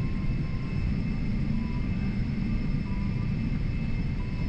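Boeing 777-300's jet engines at taxi power, heard inside the cabin: a steady low rumble with a steady high whine over it.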